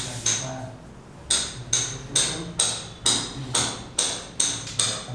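Hammer blows striking with a metallic ring, about two to three a second in a steady rhythm, after a short pause about half a second in.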